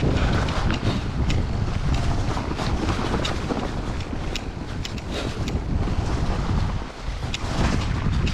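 Wind buffeting the microphone as an e-mountain bike rolls down a snowy singletrack, with tyre rumble and sharp clicks and rattles from the bike over bumps. It briefly drops quieter about seven seconds in.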